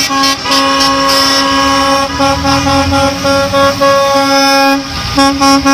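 School bus horns honking as the buses drive by: long held blasts with only brief breaks, turning into a string of short honks near the end, over a low engine rumble.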